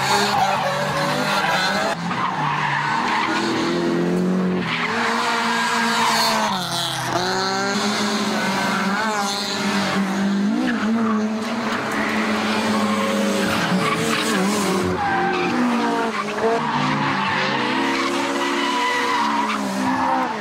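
Several drift cars sliding one after another through a corner, engines revving up and down and tyres squealing.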